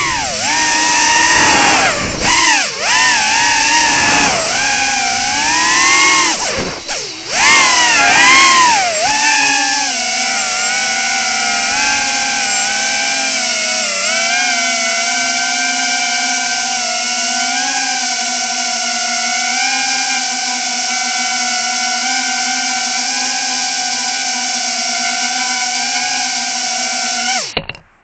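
Tinyhawk 2 micro quadcopter's four small brushless motors whining, the pitch swooping up and down with the throttle for the first nine seconds or so. The whine then holds a steadier pitch with small wobbles and cuts off suddenly near the end.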